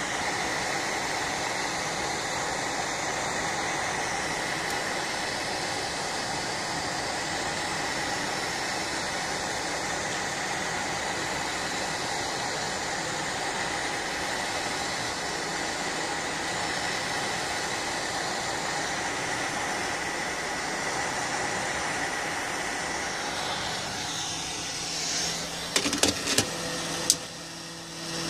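Hot-air nozzle of a homemade BGA rework station blowing steadily onto a reballing stencil, a steady rush of air with a faint whine, melting new solder balls onto the graphics chip. About 24 s in the airflow changes and stops, followed by a few sharp clicks and a low steady hum.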